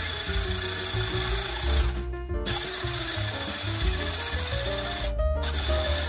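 Electric whisk beating cream in a stainless steel bowl, whipping it to soft peaks. The motor runs with a steady whine and briefly stops and restarts about two seconds in and again near the end. Background music plays underneath.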